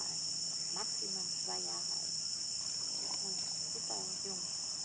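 Dense, unbroken chorus of tropical insects: a continuous high-pitched buzzing drone.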